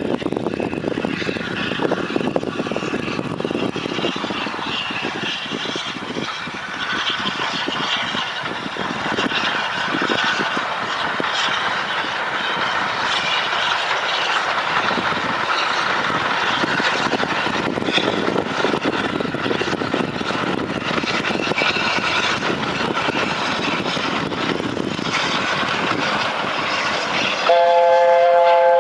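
LNER A4 Pacific steam locomotive 4464 Bittern running past hauling carriages, a steady mechanical rumble and clatter. About a second before the end its chime whistle sounds, a chord of three notes held at once.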